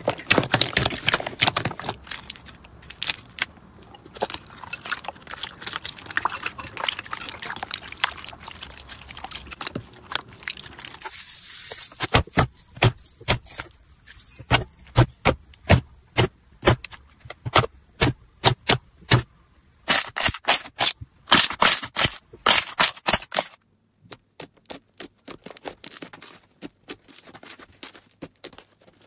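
Slime being squeezed, folded and pressed by hand, making a dense run of sticky clicks, crackles and pops. The pace and loudness of the clicking change a few times.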